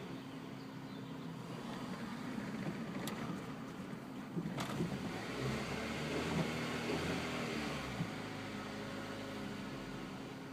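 1999 Honda CR-V's four-cylinder engine running, swelling in sound from about four to eight seconds in. The car has a bad fuel pump that makes it hesitate on and off under acceleration. Two sharp clicks come about three and four and a half seconds in.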